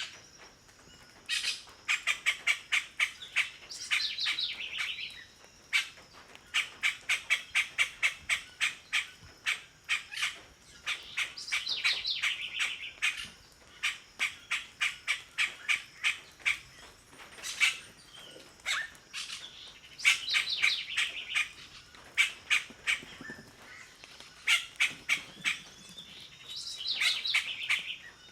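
A bird calling in bouts of sharp chattering notes, about five a second, with short warbled phrases mixed in, repeated several times with short pauses between bouts.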